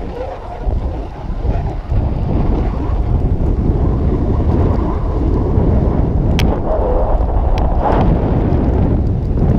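Wind rushing over the microphone of a camera worn by a rider descending a fresh snow run, mixed with the hiss of snow under the rider. It grows louder about two seconds in, with a few sharp clicks in the second half.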